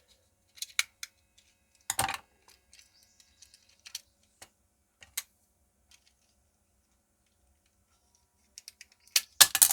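Small plastic clicks and knocks from a battery wall clock movement being handled and pressed together as its parts are forced into place. The clicks are scattered, with a loud one about two seconds in, a quiet stretch, and a loud cluster near the end.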